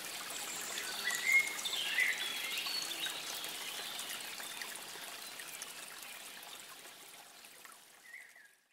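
Trickling water with birds chirping, a few clear calls about a second or two in. It fades out steadily toward the end.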